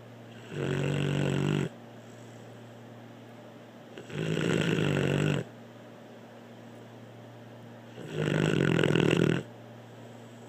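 Snoring: three long, pitched snores, each just over a second, about four seconds apart.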